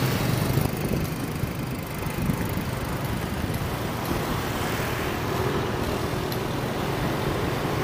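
Steady road traffic noise: vehicle engines and tyres on the road.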